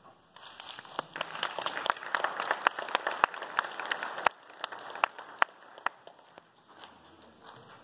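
Audience applauding. The clapping starts about half a second in, is thickest in the middle, then thins to a few scattered claps and dies away near the end.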